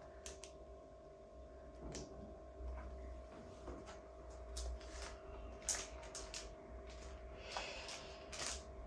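Faint scattered clicks and rustles of product packaging being handled as items are taken out of a box, over a faint steady hum.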